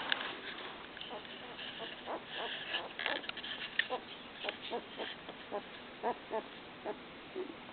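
Newborn puppies squeaking and whimpering: a string of short, pitched cries, more of them from about two seconds in, over some light scuffling and rustling early on.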